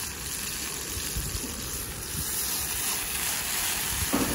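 Chopped tomatoes frying in olive oil in a pan on a gas burner, a steady sizzle, with wind rumbling on the microphone. A short bump near the end as the pan is moved.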